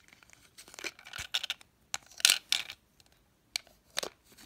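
Small plastic balls clicking and rattling against the clear plastic dome of a toy gacha machine as they are pushed back in through its opening: scattered sharp clicks, busiest a little past two seconds in.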